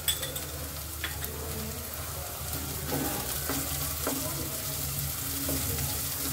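Chopped onion, ginger-garlic and green chilli sizzling steadily in a kadhai as a wooden spatula stirs them, with a few light knocks and scrapes of the spatula against the pan. This is the tadka being sautéed until light golden.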